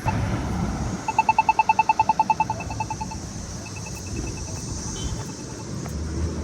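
Polara iNS accessible pedestrian signal sounding its rapid beeping walk indication: a fast train of about ten beeps a second starting about a second in, loud for about two seconds and then continuing fainter until near the end. A single beep sounds right at the start, with traffic rumble underneath.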